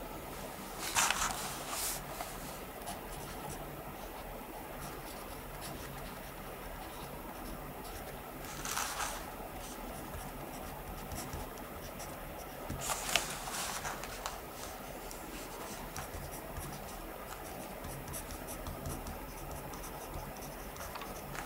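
Pen writing on paper, faint scratching strokes, with a few short, louder paper rustles about a second in, around nine seconds in and around thirteen seconds in.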